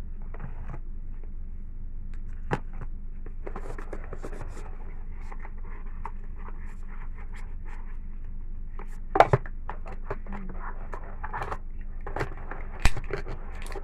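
Hands handling a smartphone's cardboard box and packaging: scratching and scraping with scattered small clicks, and two sharper knocks, about nine and thirteen seconds in.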